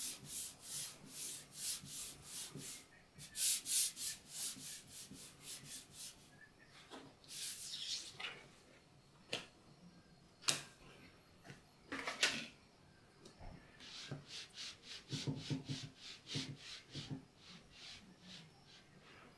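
Paper pattern rubbed back and forth by hand on a plastic cutting mat: quick swishing strokes, about two to three a second, for the first few seconds. A few sharp clicks follow as the pattern is picked up and handled. Then comes a second run of shorter, duller strokes as the pattern, now backed with non-slip tape, grips the mat and hardly slides.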